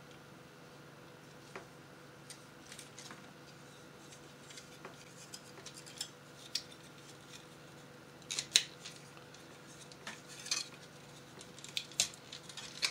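Hard plastic model-kit parts, the X-Wing's wing assemblies, clicking and tapping as they are handled and pressed together, in scattered light clicks with a sharper one a little past the middle.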